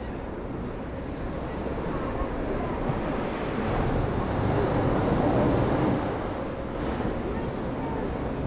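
Ocean surf washing on the beach below, mixed with wind rumbling on the microphone; the sound swells louder for a couple of seconds near the middle.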